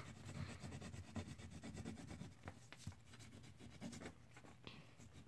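Wax crayon scribbled quickly back and forth on paper, a faint, fast scratching. The white crayon is being rubbed off to clean away the other colours smeared on it.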